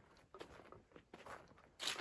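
Footsteps crunching on the forest floor: faint, irregular crackling steps, with a louder rustle near the end.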